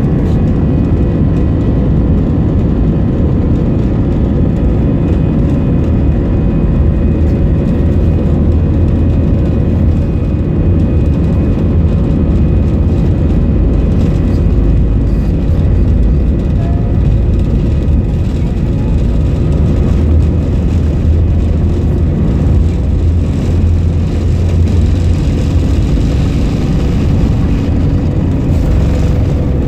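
Steady low rumble and hum of an Airbus A320-family airliner's jet engines at taxi power, heard inside the passenger cabin as the plane taxis. A higher hiss grows slightly near the end.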